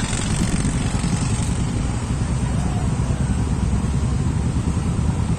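Royal Enfield Himalayan motorcycle's single-cylinder engine running steadily on the move.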